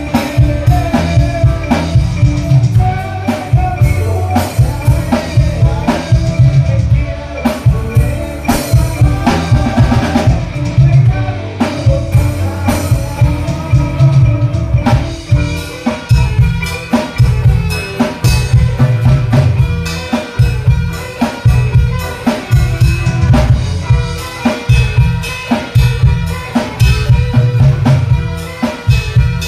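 Band music with a drum kit keeping a steady beat over a strong bass line.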